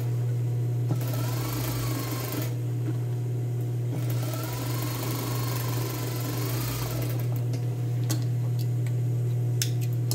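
Industrial lockstitch sewing machine topstitching through the denim side seam of a pair of shorts, running in two spurts and stopping about seven seconds in, over a steady motor hum. A few light clicks follow near the end.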